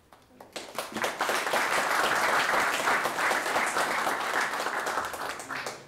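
Audience applauding, building up about half a second in and dying away near the end.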